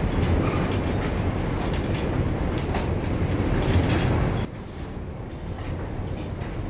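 Hand tools clicking and knocking on the bicycle's rusted rear-wheel axle nuts while working the stuck wheel loose, over a steady rumbling background noise. The rumble drops off suddenly about four and a half seconds in.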